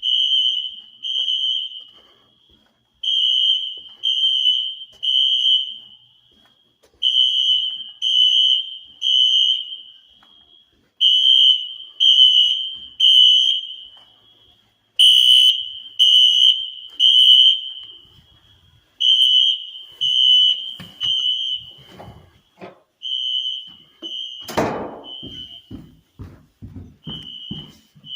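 Wheelock fire alarm horns sounding in the temporal-3 evacuation pattern: three short blasts, a pause, then again, over and over. Near the end there is a single loud bang.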